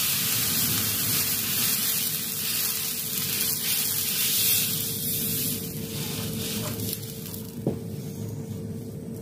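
Water poured into a hot wok of oil and sautéed aromatics sizzles and hisses. The hiss is loudest at first and slowly dies away as the water settles, with a single light knock near the end.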